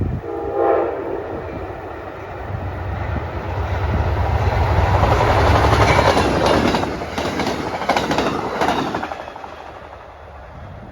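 Train horn giving one short blast about half a second in, then a passing train whose rumble and wheel clatter on the rails build to a peak mid-way and fade away near the end.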